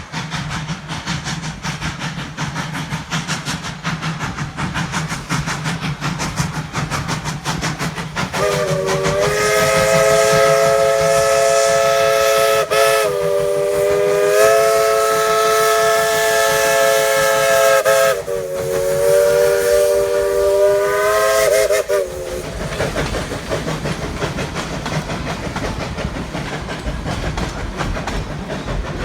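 Chime steam whistle of Tweetsie Railroad No. 190, a Baldwin 4-6-0 narrow-gauge steam locomotive, blowing a chord of several tones for about thirteen seconds in three long blasts with brief dips between them, over the steady rumble and clatter of the moving train.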